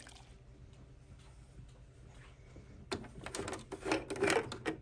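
Plastic cap being worked loose and lifted off the xTool P2 laser's coolant water tank: a run of clicks and scrapes in the second half, after a few seconds of quiet room tone.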